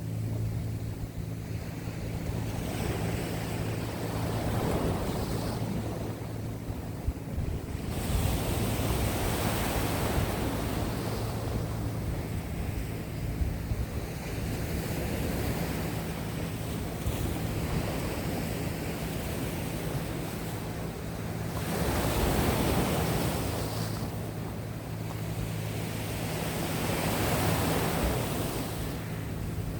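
Sea waves washing onto the shore, the surf swelling and easing every few seconds, with wind buffeting the microphone. A faint steady low hum runs underneath.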